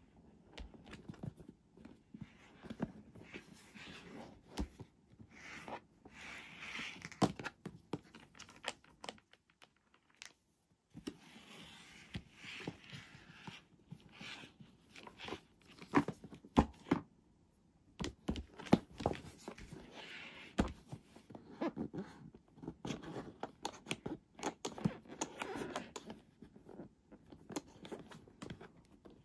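Hands handling a hard plastic toy doctor's bag case, tapping, rubbing and scraping its shell as it is turned over, with scattered sharp clicks and knocks.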